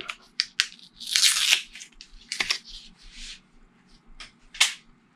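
Paper band being torn off a stack of cardboard game tiles, with a sharp rip about a second in, followed by scattered clicks and rustles as the stiff tiles are handled and set down.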